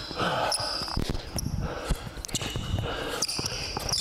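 A basketball being dribbled on a hardwood gym floor in repeated bounces, with brief high squeaks of sneakers on the court.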